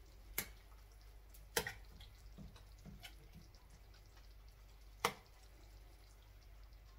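Slotted metal spoon knocking against a stainless steel pan three times while stirring chicken and tomatoes, with a few soft wet squelches between the knocks.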